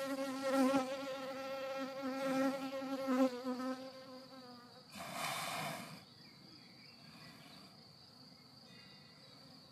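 A flying insect buzzing close by, its drone wavering in pitch, then fading out a little under four seconds in. A short hiss comes about five seconds in. Under it, a steady high-pitched insect trill carries on, faint once the buzzing stops.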